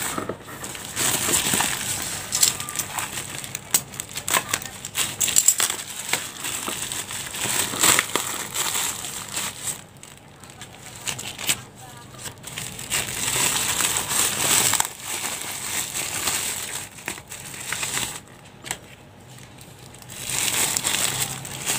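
Black plastic bubble wrap and clear plastic lure sleeves crinkling and rustling as hands unwrap and handle them, in irregular spells with a few short quieter pauses.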